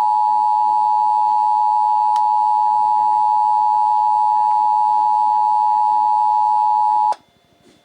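Emergency Alert System attention signal: a loud, steady tone of about 1 kHz, cutting off suddenly about seven seconds in.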